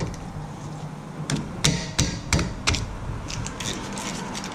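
Hand ratchet clicking in short irregular runs, with sharp metal taps, as a 12 mm bolt on a Honda Civic front brake caliper is loosened. The clicks start about a second in.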